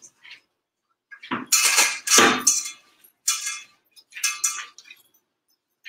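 A metal mixing bowl knocking and scraping on the counter while dough is kneaded in it, in three bouts of clattering with a slight ring. The first, about a second in, is the longest and loudest.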